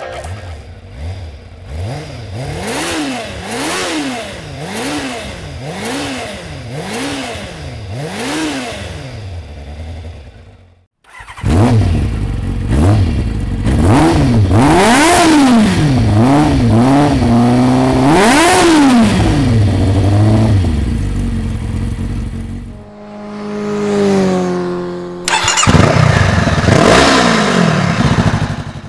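Kawasaki ZZR600 inline-four engine revved again and again at a standstill, its pitch rising and falling with each blip: first through the standard silencer, then, after a short break, noticeably louder through a Lextek oval stainless-steel aftermarket silencer.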